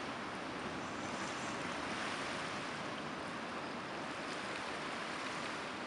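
Steady wash of ocean surf on a beach, an even hiss with no separate wave breaks standing out.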